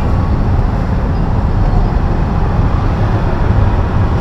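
Steady low rumble of a busy street market's background noise, with no single sound standing out.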